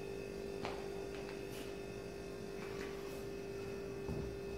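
A quiet steady hum on one pitch, with a few faint clicks: room tone.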